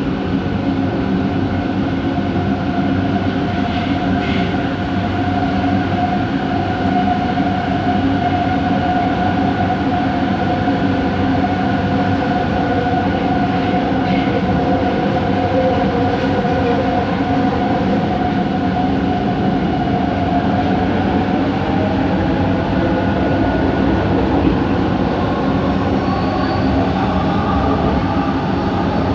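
Bombardier Innovia ART 200 train running, heard from on board: rumble with a steady whine from its linear induction motors, several tones at once. Over the last several seconds the whine rises in pitch.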